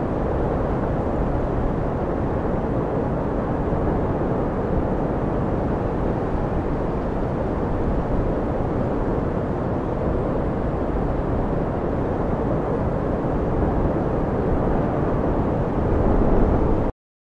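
Strong storm wind rushing over the microphone: a steady, loud, rumbling noise that swells slightly and then cuts off suddenly near the end.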